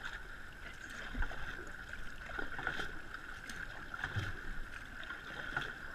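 Water lapping and splashing against an outrigger canoe's hull and float, with small irregular splashes over a steady hiss.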